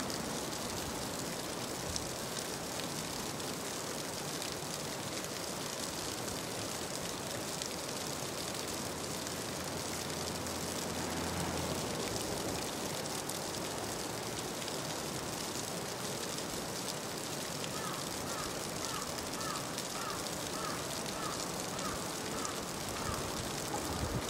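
Steady rush of a small mountain stream running over rocks. A low hum rises briefly around ten to twelve seconds in, and a short high chirp repeats about twice a second near the end.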